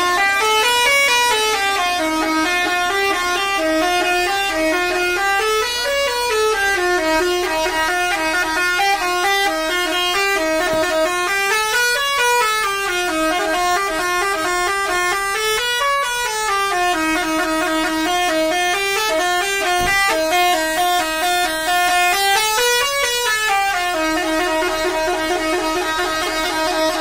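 Truck's musical horn playing an unbroken tune of stepped notes that climb and fall back in repeated runs, settling on one steady held note near the end.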